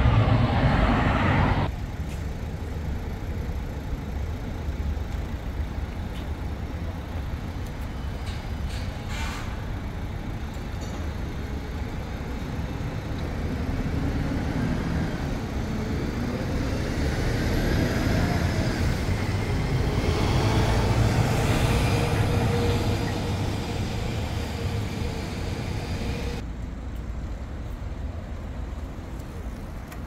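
City street traffic: cars, buses and trucks passing in a steady wash of road noise that swells and fades. The sound drops abruptly about two seconds in and changes again near the end.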